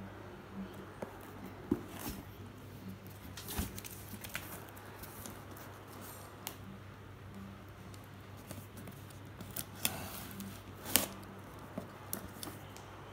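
A cardboard shipping box being handled and its packing tape cut with a box cutter. Scattered scrapes and clicks, the sharpest about eleven seconds in.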